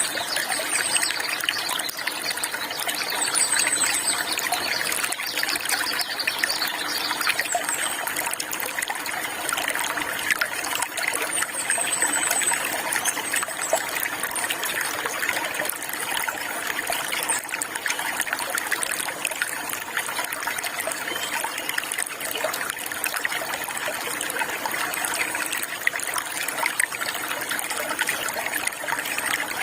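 Steady trickling and splashing of running water, with a few faint high bird chirps in the first half.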